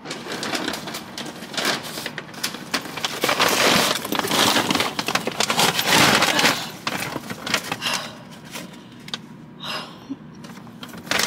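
Rustling, clicks and knocks of a person getting into a car's driver's seat and settling in, clothing brushing the leather seat and things being handled. It is busiest in the first several seconds and quieter after.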